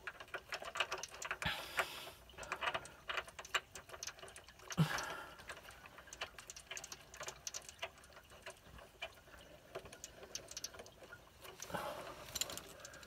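Irregular light metallic clicks and ticks from hand work on an electric water heater's heating-element port, with one firmer knock about five seconds in.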